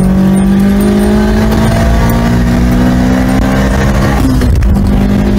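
Opel A16LE 1.6-litre 16-valve turbocharged four-cylinder engine pulling hard under acceleration, heard from inside the car. The revs climb steadily, drop sharply on a gear change a little past four seconds in, then climb again.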